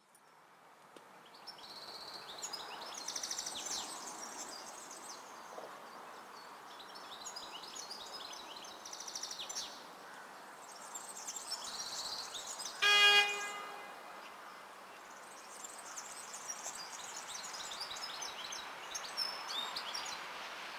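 Newag Dragon2 electric freight locomotive sounding its horn once in a single long blast of about a second, the Polish Rp1 'Baczność' (attention) warning signal. Birds chirp throughout over a steady outdoor background.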